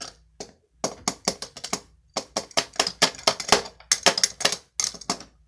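Quick, irregular run of sharp hard-plastic clicks and clacks, about five a second, from a toy action figure being handled and its parts moved.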